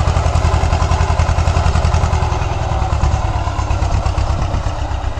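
T-25 tractor's two-cylinder air-cooled diesel engine running steadily with a quick, even chugging beat, easing off slightly near the end.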